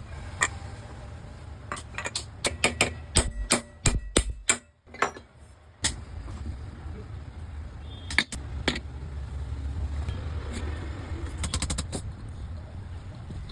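Sharp clicks and taps of hand tools on ceiling-fan parts during a bearing change, coming in irregular clusters over a low steady rumble.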